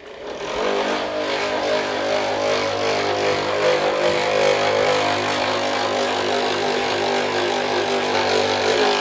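An electric motor running at a steady pitch, starting just after the start and cutting off near the end.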